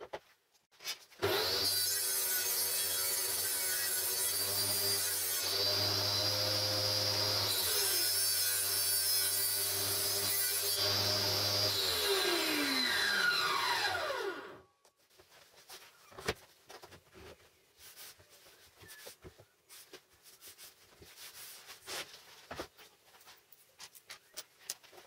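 A woodworking power tool's motor starts up and runs while wood is worked against it, the sound changing as the work is pressed on and eased off. About 12 seconds in it is switched off and winds down with a falling whine; light knocks and clicks of wood being handled follow.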